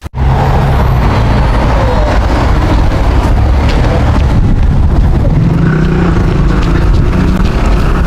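Steady low rumble of a vehicle on the move, as from inside or beside a driving car.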